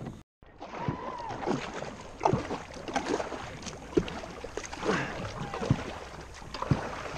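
Double-bladed kayak paddle dipping and pulling through river water, splashing and dripping with a stroke about every second, after a brief gap near the start.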